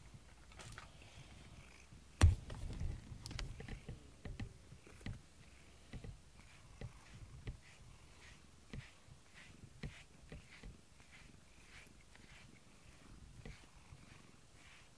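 Domestic cat purring close by while being brushed with a rubber-bristled brush, the brush strokes coming as short, repeated swishes. A single sharp knock sounds about two seconds in.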